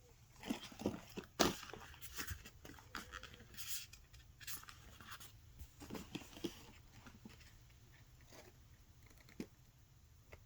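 Paper and card being handled: a flurry of short rustles and taps over the first six seconds or so, the sharpest tap about a second and a half in, then one lone tap near the end.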